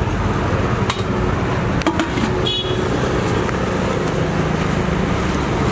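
Road traffic running steadily past, a continuous engine rumble, with a few short sharp clicks and a brief high-pitched toot about halfway through.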